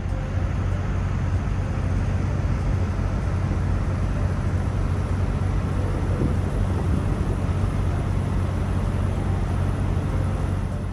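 Steady running noise of a vehicle: a low, even engine hum under a rushing haze of road or wind noise. It fades up at the start and down at the end.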